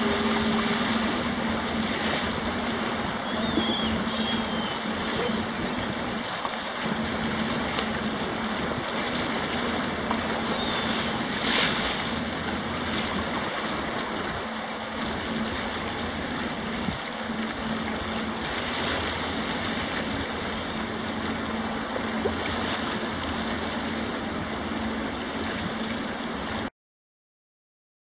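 The Great Lakes freighter American Century passing close by: a steady low drone from the ship with water rushing along its hull, a few faint gull calls, and one sharp knock near the middle. The sound cuts off suddenly near the end.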